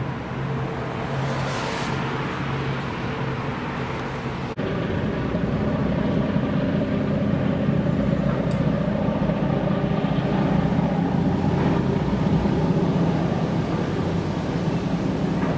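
Marine diesel engines droning steadily, with a low, even hum. About four and a half seconds in, it cuts abruptly to a louder drone at a different pitch.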